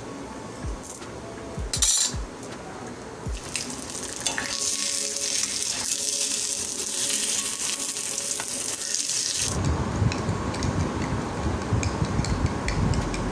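Egg frying in oil on a flat iron tawa: a steady high sizzle that starts about four seconds in and stops suddenly after about five seconds, with a few sharp clacks of a metal spatula on the griddle before it. Near the end, a spoon clinks lightly against a glass mug as tea is stirred.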